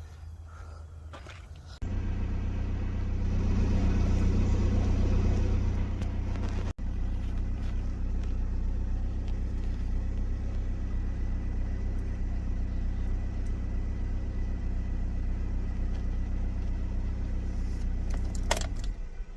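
A car running. The sound comes in abruptly about two seconds in, is louder for a few seconds, then holds steady until just before the end, with a momentary break near seven seconds.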